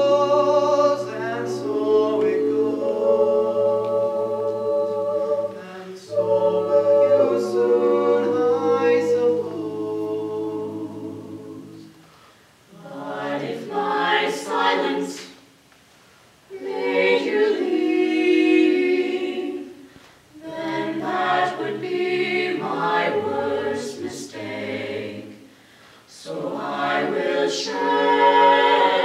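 A small mixed a cappella vocal ensemble of men and women sings a slow ballad in close harmony, holding long chords over a low bass line. About twelve seconds in, the singing breaks into shorter phrases separated by brief pauses.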